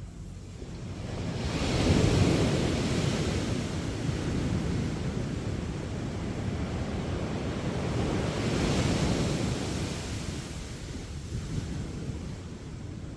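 Sea waves breaking and washing up on the beach: one big surge about two seconds in, a second around nine seconds, with a steady wash between them.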